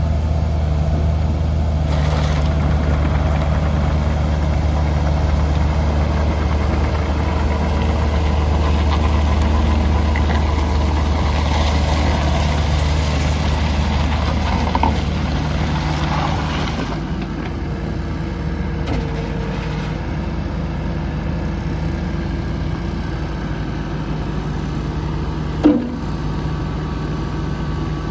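2019 Kubota U55-4 excavator's diesel engine running steadily. Its deep low hum drops away about two-thirds of the way through, leaving a quieter, lighter run. A single short knock comes near the end.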